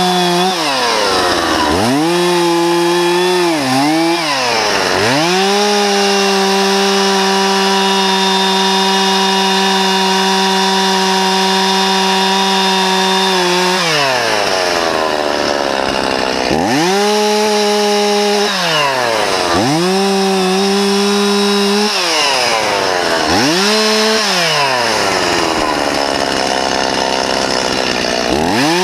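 Stihl two-stroke chainsaw revved to full throttle and let back down to idle over and over while cutting through limbs. There is one long full-throttle run of about eight seconds in the middle, then shorter bursts of two or three seconds.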